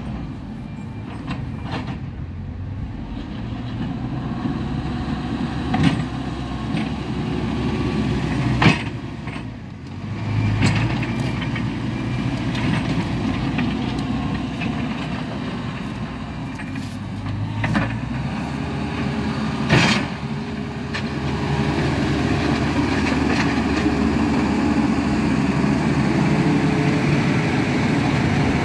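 Diesel engines of heavy road-building machines running steadily, with a few sharp knocks.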